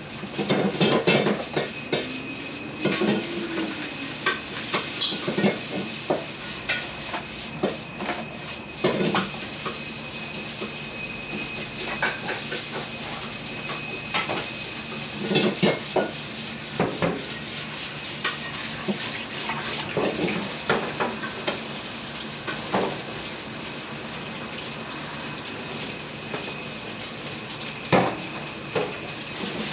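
Garlic fried rice frying in a metal pan on a stove. A steady sizzle runs under a metal utensil stirring, scraping and knocking against the pan at irregular intervals, with a sharp knock near the end.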